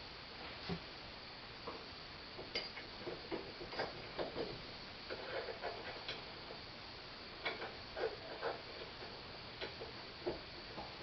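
Scattered light clicks and small knocks, irregular and faint, as cast iron parts of a Corona hand corn mill are handled and fitted together.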